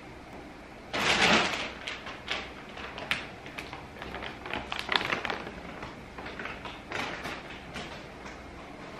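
A large plastic bag of chips crinkling and rustling as it is handled, with a loud burst of rustling about a second in and irregular sharp crackles after it.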